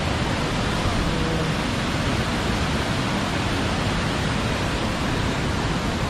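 Waterfall: a steady, loud rush of falling water with no breaks.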